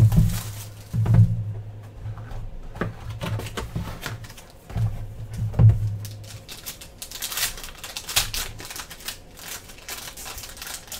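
A cardboard trading-card box being handled, with a few knocks and thumps, then a silver foil card pack being torn open and crinkling for the last few seconds.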